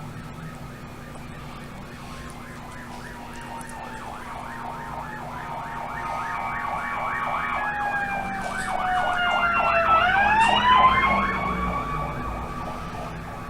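Emergency vehicle sirens passing by: a fast yelp of rapidly repeating sweeps together with a slower wail that falls and then climbs again. They grow louder to a peak about ten seconds in, then fade.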